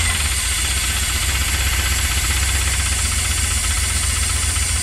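Flood-damaged Dodge truck engine running at idle with a knocking inside the engine, which the owner takes for a bad connecting rod (a rod knock).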